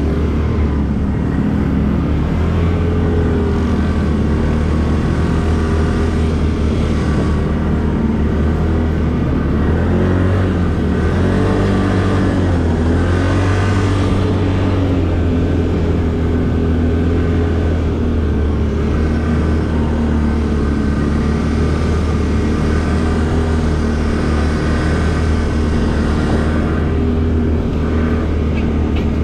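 ATV engine running steadily while riding, with its pitch rising and falling a little about halfway through.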